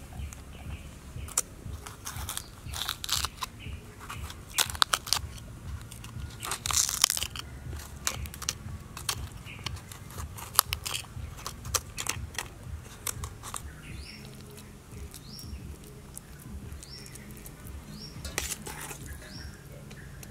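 Crisp crunching and tearing of raw red cabbage leaves as a knife cuts and pulls out the cabbage's inside, in irregular bursts that thin out after about two-thirds of the way. A few short high bird chirps come in over the last third.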